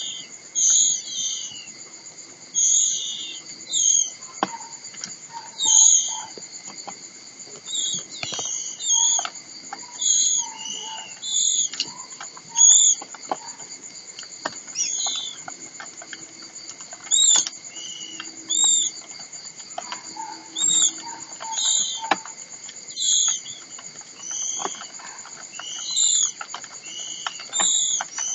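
White-rumped shama giving short, sharp high calls every second or two, with a few lower notes in between. Steady high-pitched insect-like tones run behind the calls.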